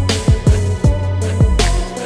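Background music: a hip hop beat with a deep kick drum and sustained melodic notes.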